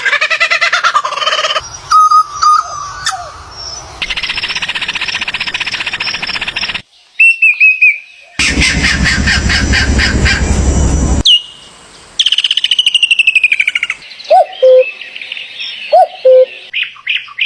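A montage of short, abruptly spliced animal-call clips, mostly birds: chirps, downward-sweeping whistled calls and fast trills. About halfway through comes a loud, rapid, rattling pulse lasting about three seconds, and near the end there are two short lower calls.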